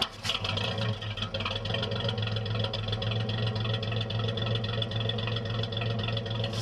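Praga RN truck's engine idling steadily, heard right at its exhaust outlet as the exhaust puffs out. A short click right at the start.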